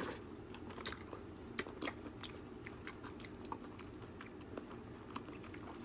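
A person chewing a mouthful of wagyu steak, with scattered light clicks.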